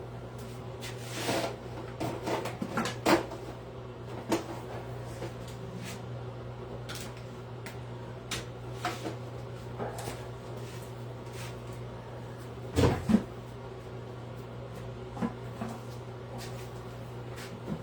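Scattered knocks, taps and clicks of tools and the wooden workpiece being handled on a workbench, over a steady low hum. The loudest is a pair of knocks about two-thirds of the way through.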